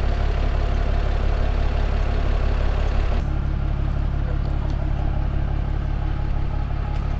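Diesel truck engine idling steadily, a low even hum. A rushing hiss above it drops away about three seconds in.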